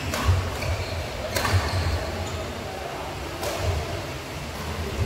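Badminton rally: three sharp racket strikes on the shuttlecock, a second to two seconds apart, over low thuds of footwork on the court.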